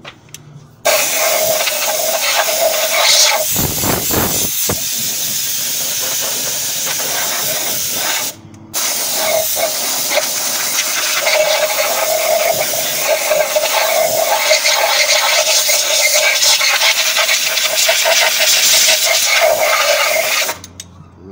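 Compressed-air blow gun hissing in a long steady blast, let off briefly about eight seconds in, then blowing again until it stops near the end.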